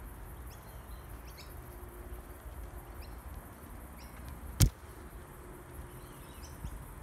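Outdoor ambience of short, high bird chirps coming every second or so over a steady low rumble of wind on the microphone, with one sharp click a little past halfway.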